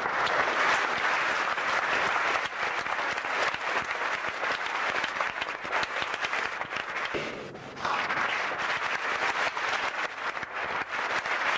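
Audience applauding: many hands clapping in a dense, steady patter that dips briefly about seven and a half seconds in, then picks up again.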